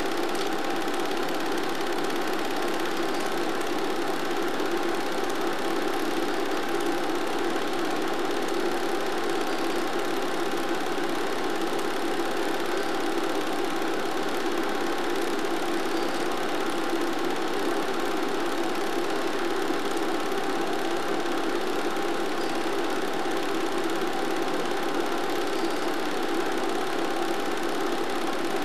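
A steady mechanical whir that holds one pitch and one level throughout, with no revving or passing bikes.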